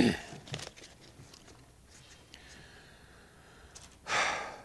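Quiet room tone with a few faint clicks, and a short hissing burst of noise without pitch about four seconds in.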